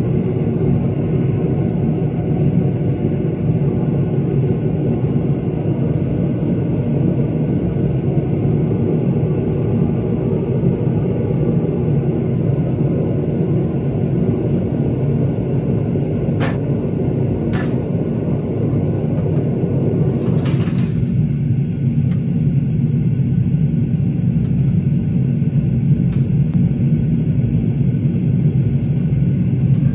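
Gas burner of a home-made foundry furnace running with a steady low rumble while a crucible of metal melts. Two light clicks come partway through, and about two-thirds of the way in the higher hiss drops away, leaving the low rumble.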